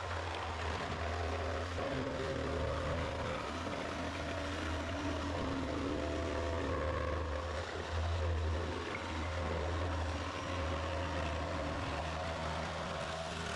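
A machine or engine running with a steady low hum.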